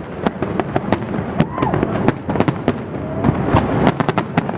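Fireworks display: many sharp bangs and crackles going off in quick, irregular succession.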